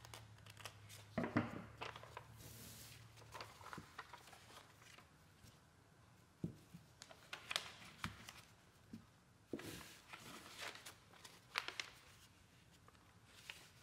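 Faint rustling and crinkling of a paper template being handled: a few scissor snips in the first couple of seconds, then the paper folded and pressed around a knife blade, with scattered soft taps on the wooden bench.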